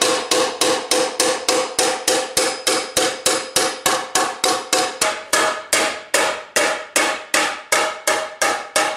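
Hand hammer striking a red-hot, dished steel frying pan on an anvil in a steady rhythm of about three blows a second, each blow ringing metallically. The ring steps up in pitch about five seconds in. The smith is working the hammer around the pan to shape its body.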